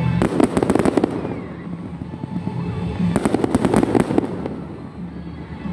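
Aerial fireworks bursting in two rounds of rapid crackling, one just after the start and one about three seconds in, each lasting about a second.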